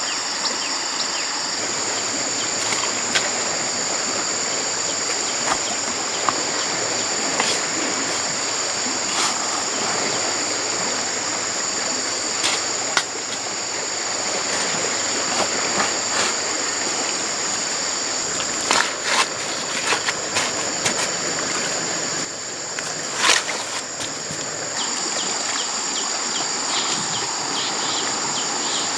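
Rushing river water, with insects droning steadily at a high pitch over it. A hoe chops into wet mud and splashes water, giving scattered sharp strikes, most of them in the second half.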